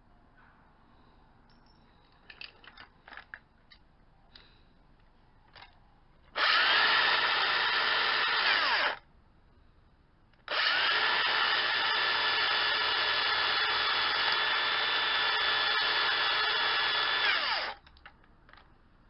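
A handheld electric power tool run twice, first for about two and a half seconds and then for about seven seconds, each time spinning up to a steady pitch and winding down when released. A few light knocks and taps come before the first run.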